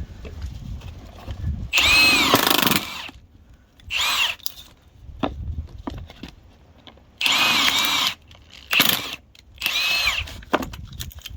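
Milwaukee M18 2767 high-torque impact wrench driving a spiral log-splitting screw into a small piece of sawn timber, run in five short trigger bursts with the motor pitch rising and falling in each. A few sharp cracks come between the bursts.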